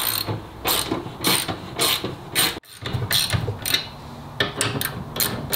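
Bronco tool-kit 13 mm socket ratchet clicking in short runs as it tightens the soft top's mounting bolts, the pawl ratcheting on each back-stroke.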